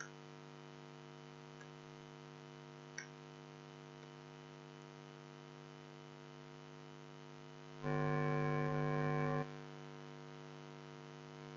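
Faint, steady electrical mains hum with a buzzy stack of overtones on the recording. About two-thirds of the way in it swells much louder for about a second and a half, then drops back. A couple of tiny clicks come early on.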